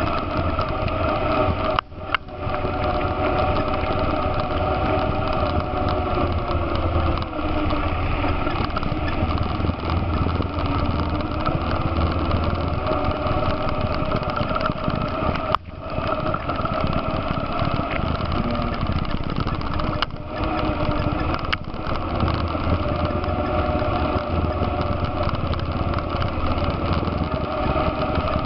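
ATV engine running while riding along a trail, its note rising and falling slowly with the throttle. It drops out briefly about two seconds in and again around sixteen and twenty seconds.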